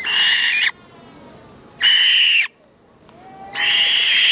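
Fish owl giving three harsh, rasping screeches of under a second each, about two seconds apart: food-begging calls.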